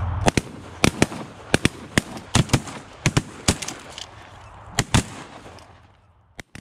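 Several shotguns firing in a rapid, ragged volley: a dozen or so blasts spread over about five seconds. The sound then fades out.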